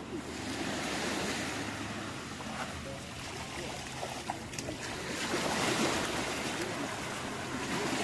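Small waves washing up onto a sandy beach in a continuous hiss that swells and eases, loudest about five to six seconds in.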